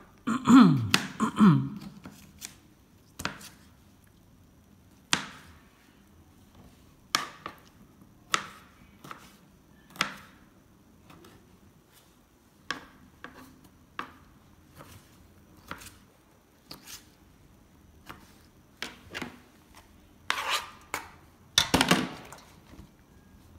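Small knife cutting tomatoes on a wooden cutting board: sharp knocks of the blade on the board at an irregular pace, roughly one a second. Near the start there is a louder burst with a short falling squeak, and another quick run of knocks near the end.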